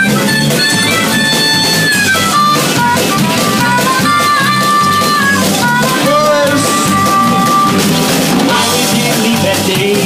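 Live rock band playing an instrumental break: drum kit, electric guitars and bass, with a lead line of long held notes that bend up and down.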